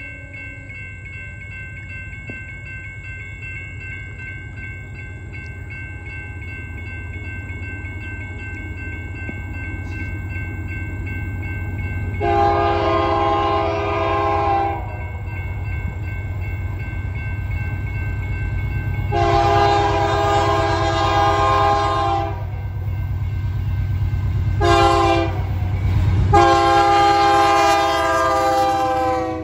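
A BNSF freight train's diesel locomotives approaching with a growing low rumble, the lead unit's air horn sounding the grade-crossing signal: long, long, short, long, the last blast running into the locomotives' passing.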